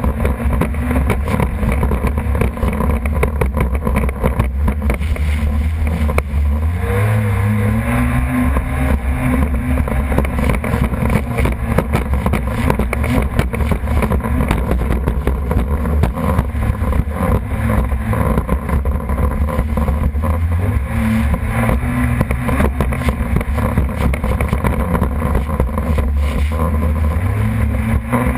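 Personal watercraft (jet ski) engine running under way, revving up with rising pitch about a quarter of the way in, again about two-thirds through and once more near the end.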